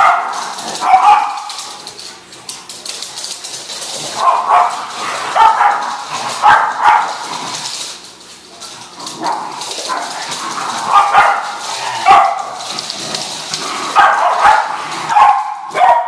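Dogs barking while play-fighting, in bouts of quick repeated barks with quieter stretches in between.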